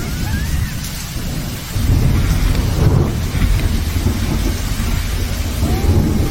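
Heavy rain with a deep, continuous low rumble that gets louder about two seconds in.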